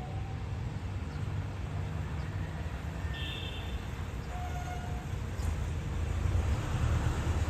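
Low, steady engine rumble of distant vehicle traffic, swelling louder about five seconds in, with a few short, faint high chirps.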